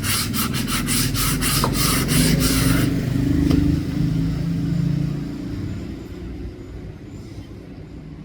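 Rhythmic hand sanding strokes on a wooden axe handle, about four a second, stopping about three seconds in, over a low rumble that fades out about five seconds in.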